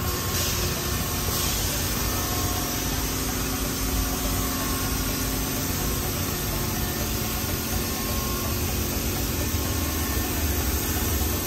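Steady hum and hiss of car wash equipment running, a low rumble under a constant hiss.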